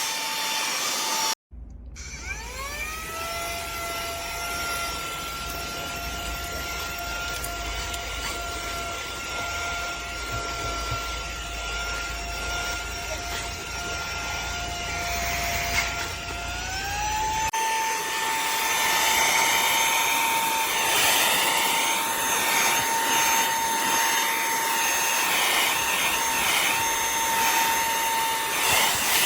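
Motor of a YTENCM cordless handheld vacuum, a steady high whine with rushing air. It spins up about a second and a half in, runs steadily, then steps up to a higher pitch about 16 seconds in as it is switched to its stronger second speed. The air noise grows and wavers after the switch.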